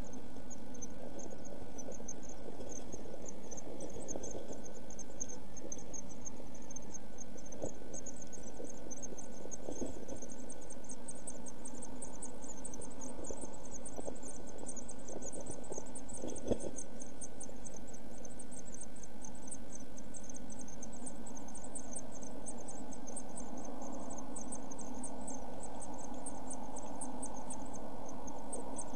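Week-old blue tit nestlings begging: a fast, unbroken run of very high-pitched cheeps that grows busier about a third of the way in, over a steady hiss and hum from the nest-box microphone. A few soft knocks come from the birds shifting in the nest, the clearest just past halfway.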